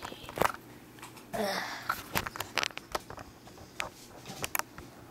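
Scattered clicks and taps with a brief crinkling rustle about a second and a half in, from a Funko Pop keychain's plastic and card packaging being handled and opened.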